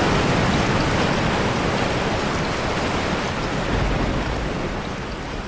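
Heavy rain and crashing sea waves in a coastal cave, blending into a dense, steady hiss that slowly grows quieter toward the end.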